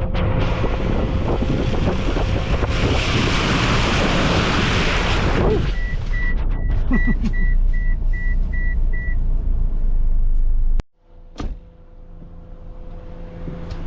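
Pontiac Vibe driving through muddy, wet ruts: a loud rushing noise of tyres and engine, which eases after about five seconds. A car's warning chime then beeps about eight times at a steady pace. Near the end the sound cuts sharply to a quieter steady engine hum.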